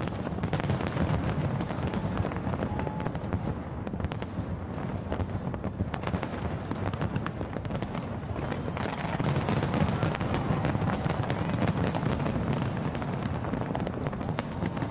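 Large aerial fireworks display going off in a dense, continuous barrage: the low booms of shells bursting overlap with constant crackling and popping, getting a little louder about two-thirds of the way through.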